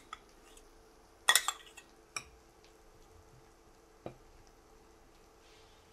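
Metal spoon clinking a few times against a ceramic bowl while stirring a thick mix of yogurt, fried onions and ground spices; the loudest clinks come about a second in, with single fainter ones later.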